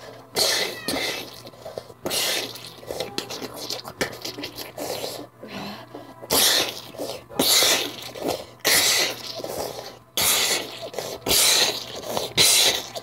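A person's voice making a run of loud, sudden, breathy bursts close to the microphone, like sneezes or forced exhalations, a dozen or more at irregular intervals.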